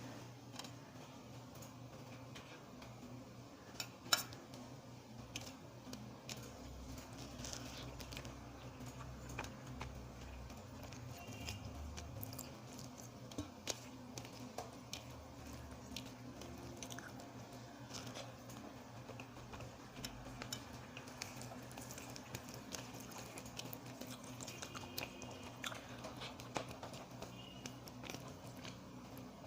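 A person eating a meal of rice, dal and curry, heard faintly: quiet chewing with many small clicks and smacks scattered throughout, a few of them sharper.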